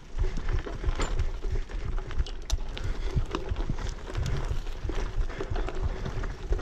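Bicycle bumping along a rough dirt trail: a low tyre rumble with frequent irregular knocks, clicks and rattles from the bike and sticks under the wheels.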